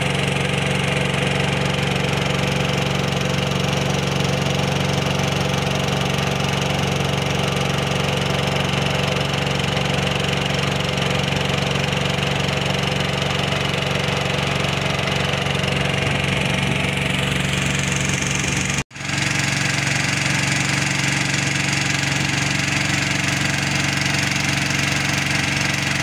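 A small wooden boat's engine running steadily at an even pitch under way, with a momentary break about three-quarters of the way through.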